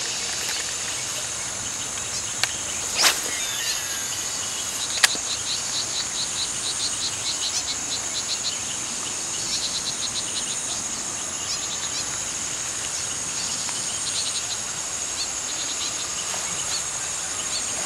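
Evening insect chorus: a steady high buzzing, with a quicker pulsed chirping of about five beats a second through the middle. A few brief sharp knocks and a short swish stand out about two and a half, three and five seconds in.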